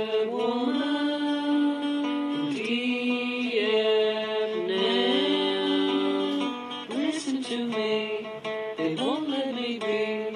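Background song: acoustic guitar with a singing voice holding long, gliding notes.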